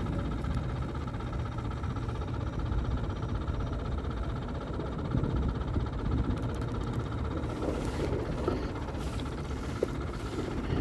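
A small electric motor running steadily: a constant whine over a low rumble, with no change in speed.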